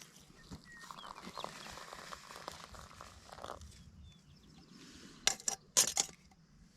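Faint rustling and handling noises, then a quick cluster of sharp clicks about five seconds in.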